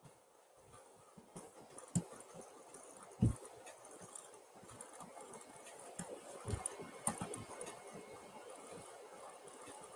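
Faint, scattered clicks and knocks of someone working at a computer desk, with two sharper thumps about two and three seconds in and a small cluster of taps later.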